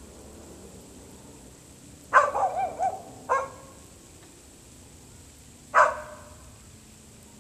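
A dog barking three times in single barks, about two, three and six seconds in. The first bark runs into a short wavering whine.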